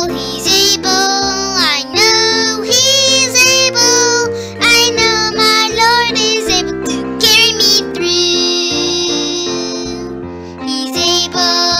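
Recorded children's worship song: a sung melody over instrumental accompaniment, with one long held note near the end.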